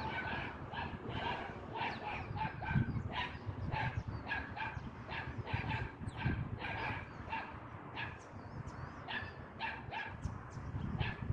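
Dogs barking over and over in short barks, about two or three a second, over a low rumble.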